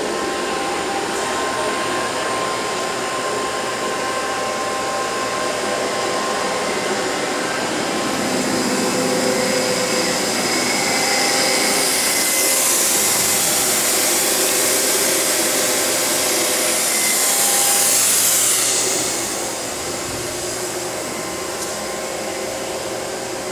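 Okuma Cadet LNC-8C CNC lathe powered up and running: a steady whirring rush of machinery with faint humming tones under it. A hiss rises over several seconds past the middle and drops away suddenly about nineteen seconds in.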